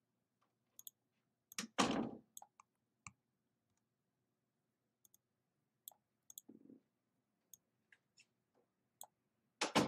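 Computer mouse clicking now and then, single scattered clicks. A louder brief noise comes about two seconds in and again near the end.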